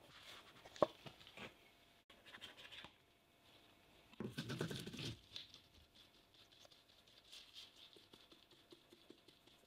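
A silicone spatula scraping and folding sticky dough in a bowl, with a sharp click under a second in. After that, flour is shaken through a metal mesh sieve, a soft patter with about a second of louder rustling around four seconds in.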